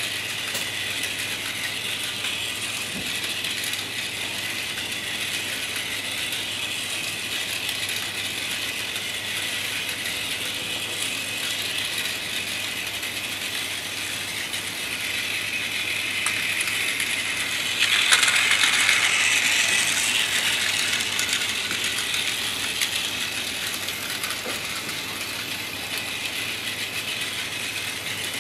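Plarail battery-powered toy train running on plastic track: a steady whirring, rattling gearbox and clattering wheels. The sound grows louder about two-thirds of the way through, peaks briefly and then fades back as the train passes close.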